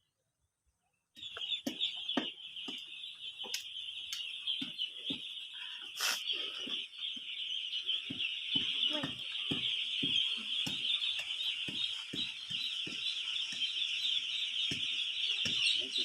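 Chickens clucking in short, irregular calls over a steady high-pitched buzz that starts about a second in.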